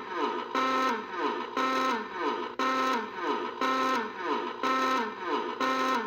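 Emergency alert alarm tone: a buzzy, many-toned note whose lower part slides down in pitch, repeating about twice a second.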